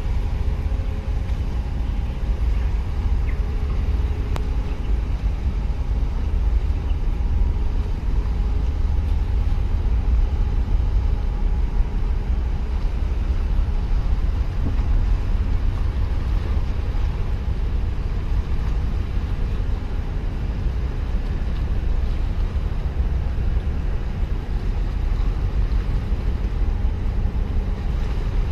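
Steady low rumble of a large container ship passing close by, with wind buffeting the microphone and a faint machinery hum.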